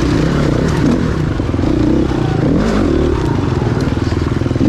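Gas Gas 350 enduro dirt bike's four-stroke engine heard close from the bike, revving up and down in bursts of throttle as it picks through rocks, with short knocks of the tyres hitting rock.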